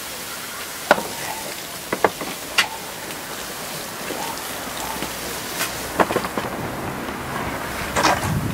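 Hot iron tyre on a wooden cart wheel hissing as water cools it and shrinks it tight onto the wheel. Sharp hammer blows on the iron rim come at irregular intervals, about seven in all.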